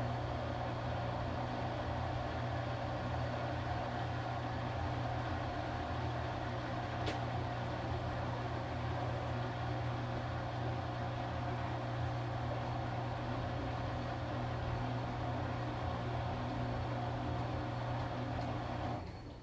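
Washing machine motor running with a steady low hum and a fainter, higher steady whine, cutting off near the end.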